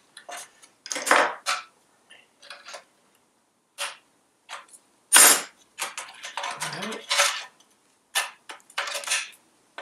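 Irregular metallic clinks, clanks and scrapes of hand tools, a spanner and a screwdriver, working at the nuts and clip of a Citroën 2CV engine's front mount. The loudest clank comes about five seconds in.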